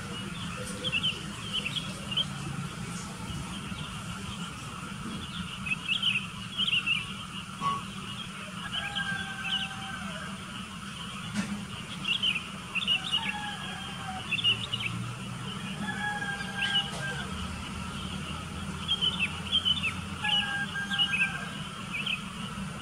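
Sooty-headed bulbuls chirping: clusters of short, bright calls, joined four times by a longer level whistled note, over a steady low rumble.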